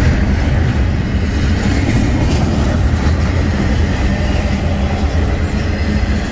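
Double-stack intermodal freight train rolling past: steady, loud rumble and clatter of the well cars' wheels on the rails, with a few sharp clanks about two to three seconds in.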